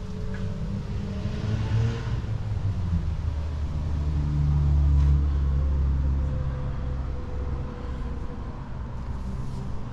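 Low engine rumble of a motor vehicle, growing louder to a peak about halfway through and then easing off.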